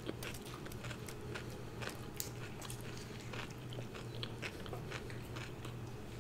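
Close-up eating sounds: a person biting and chewing food, with many small, irregular crunchy clicks.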